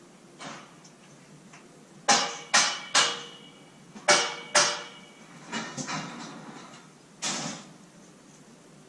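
Steel scaffolding parts clanking as the scaffold is put up: about seven sharp metal knocks, each ringing briefly, in uneven groups over several seconds.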